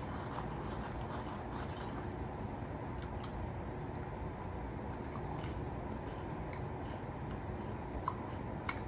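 Someone eating quietly: faint scattered small clicks and squishy mouth sounds over a steady low background rumble.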